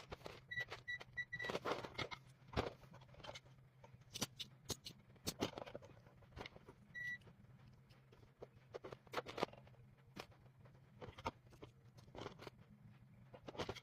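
Scattered clicks, taps and scrapes of hands handling tools and parts on an electronics bench, with five short high electronic beeps in quick succession about half a second in and one more around seven seconds in. A faint steady low hum runs underneath.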